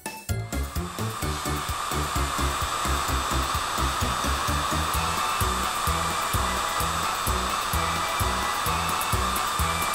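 Cartoon sound effect of a spinning rotary brush: a steady whirring hiss that builds up over the first second and then holds, over background music with a steady bass beat.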